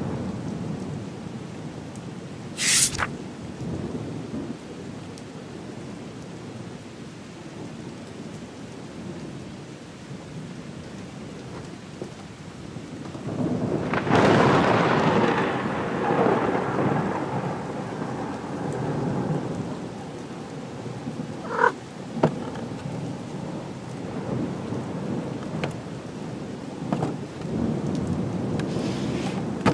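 Rain falling steadily, with a long roll of thunder that swells about halfway through and fades away over several seconds. A few short, sharp clicks stand out, one near the start and two close together later on.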